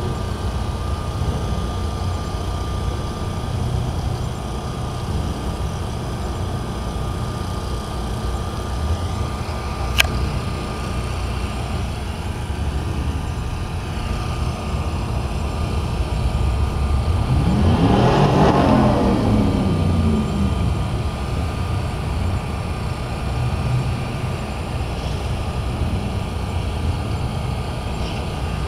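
Steady low rumble of a car engine heard from inside the car, with a single sharp click about ten seconds in. Another vehicle's engine swells and fades as it goes by, loudest a little past halfway.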